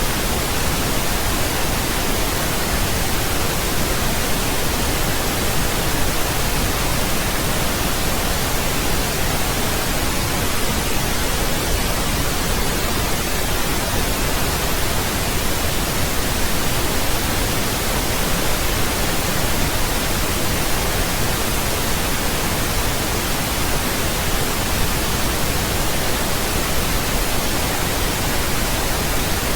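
Steady synthetic pink noise: an even, unchanging hiss spread across all pitches, with no breaks or events.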